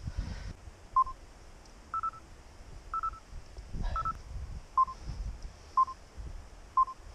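Short electronic beeps about once a second, starting about a second in, switching between a lower and a slightly higher tone, over a low rumble.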